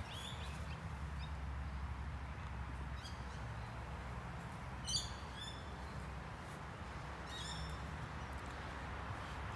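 Birds calling in short bursts of high, falling notes, loudest about five seconds in and again about two and a half seconds later, over a steady low background rumble.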